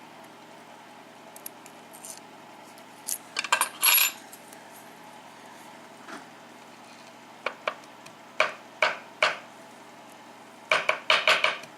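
Small metal lock parts and tools clinking against each other in sharp clicks while a disassembled Schlage KIK pin-tumbler lock is handled: a cluster about three to four seconds in, several single clicks around eight to nine seconds, and a quick run near the end.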